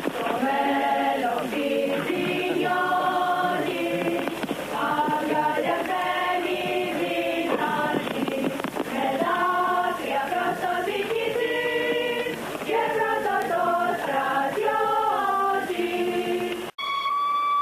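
Choir singing in harmony, with held chords that change every second or so. It cuts off abruptly near the end, and a steady high tone takes over.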